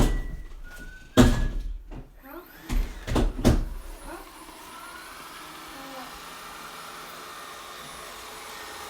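A few knocks and thumps, then the Ecovacs Deebot Ozmo 610 robot vacuum starts up about four seconds in, its suction fan spinning up with a rising whine into a steady whir.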